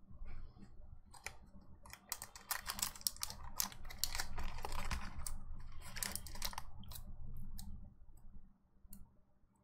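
Foil wrapper of a Pokémon card booster pack crinkling and crackling as hands handle it and work at tearing it open, densest through the middle, thinning to a few scattered clicks near the end.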